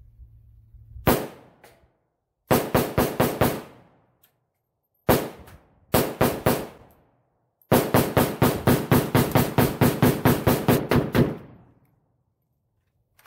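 AK-47 rifle fired in rapid semi-automatic strings: one shot, a quick string of about five, another single, four more, then a long string of about eighteen at roughly five shots a second. Each shot leaves a short echo. The rifle cycles through a borrowed magazine without a malfunction.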